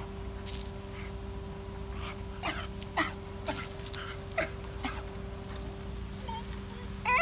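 Hokkaido dog giving a few short, faint whimpers and yips over a steady hum; a high whine starts near the end.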